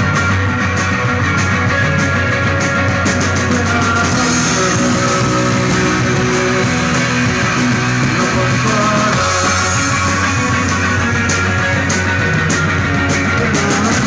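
A rock band playing live at full volume, with guitar.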